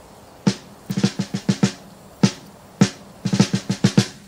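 Drums alone: sharp snare-drum strokes, some single and some in quick runs of several hits, separated by short pauses.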